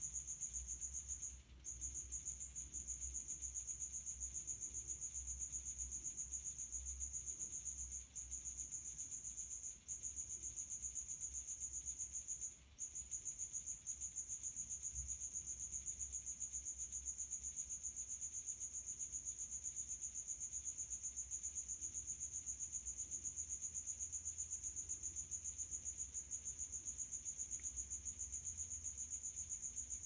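Male house cricket (Acheta domestica) chirping by rubbing its forewings together: a high-pitched, rapid string of chirps that breaks off briefly four times in the first half. The fast chirp rate is the sign of a high temperature.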